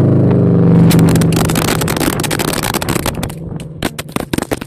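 Loud exhaust of a BRZ/FR-S/GT-86's flat-four engine, run through an unequal-length header with the catalytic converter and muffler deleted. It holds high revs, then as the revs fall it crackles and pops, the pops growing sparser as it settles toward a low idle near the end.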